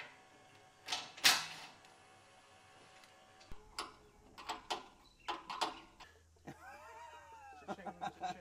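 Scattered clicks and metallic knocks of hand-tool work on the sawmill's roller-chain drive, with one sharp burst about a second in.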